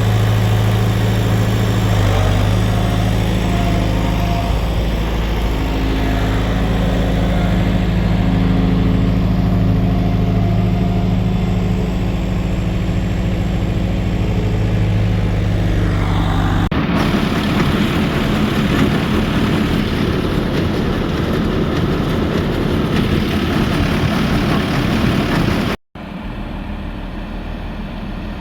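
Farm tractor engine running steadily for most of the first two-thirds. After an abrupt change, a rougher, noisier machine din takes over, and near the end a quieter engine noise follows.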